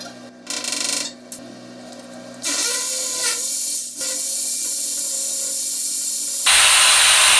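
Power drill driving screws into plastic wall plugs: a few clicks and knocks of handling, then the drill runs steadily from about two and a half seconds in, much louder from about six and a half seconds in.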